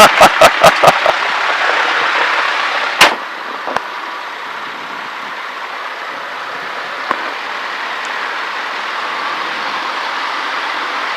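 Cessna 152's engine running at idle, a steady rushing noise in the cockpit. A quick run of sharp clicks comes in the first second, and a single knock about three seconds in.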